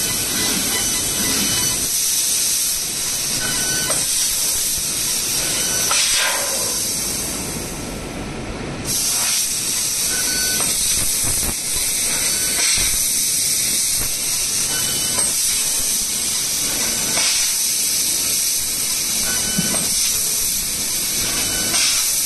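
Fiber laser tube cutting machine running, a steady loud hiss of assist gas jetting from the cutting head as it cuts steel tube. The hiss thins briefly about eight seconds in, then resumes.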